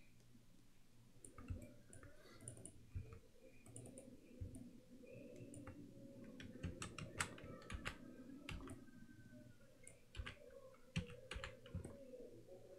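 Faint, irregular clicks of a computer mouse and keyboard keys being pressed, with a faint steady hum underneath.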